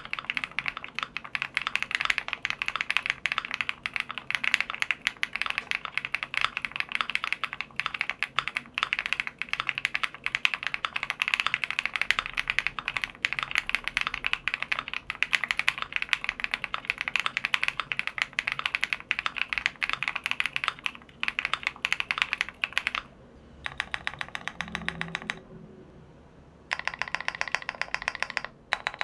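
Continuous fast typing on a Sun68 mechanical keyboard with stock Flower Shadow switches, LIN ABS double-shot keycaps, a polycarbonate plate and full foam. It makes a dense stream of keystroke clacks, broken by two short pauses about three-quarters of the way through.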